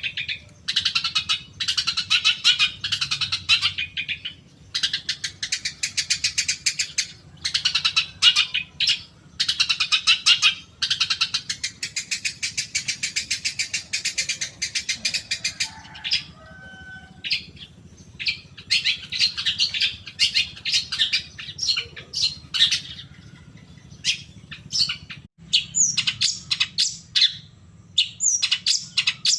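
Long-tailed shrike (cendet) singing: long runs of very fast chattering trills lasting a few seconds each with short breaks, thinning to separate short notes and quick down-slurred calls near the end.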